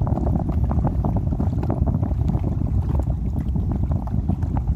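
Wind buffeting the microphone: a steady low rumble with irregular crackle.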